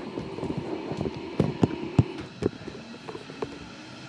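Inside a JR Kyushu 305 series electric train car: a steady hum with irregular knocks and clunks, the loudest cluster a little under halfway in.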